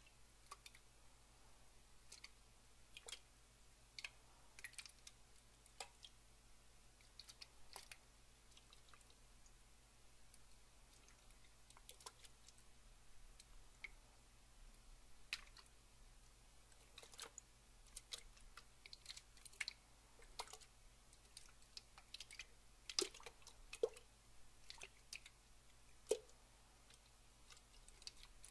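Faint water drips and small splashes, falling as sparse, irregular single drops, with a few louder drops near the end.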